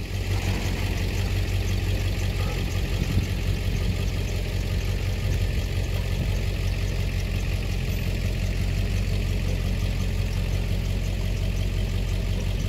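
Tow vehicle's engine running at a steady low idle while hitched to the travel trailer.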